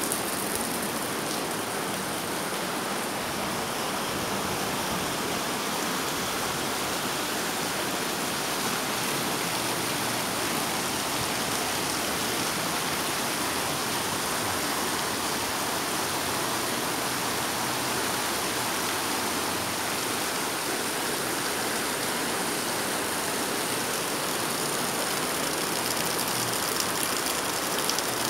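Shallow river rushing over rocks: a steady wash of flowing water.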